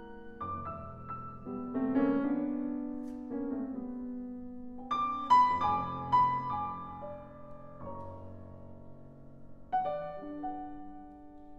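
Background piano music: a slow piano melody, single notes and chords struck and left to ring.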